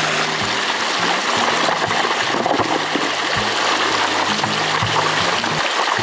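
Shallow rocky stream rushing and splashing over stones in a steady wash of water noise, with background music playing underneath.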